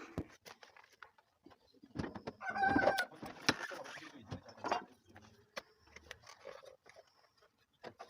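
Scattered light knocks and clicks of work, with a short pitched call about two and a half seconds in.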